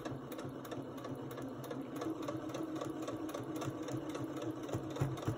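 Electric sewing machine running steadily, stitching a short seam: a continuous motor hum with a fast, even patter of needle strokes, getting a little louder about two seconds in.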